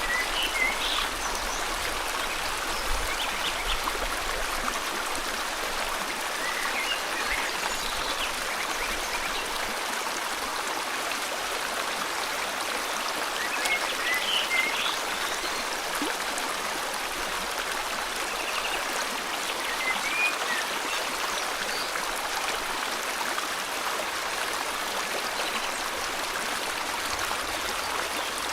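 River water flowing steadily, with short bird chirps breaking through every several seconds.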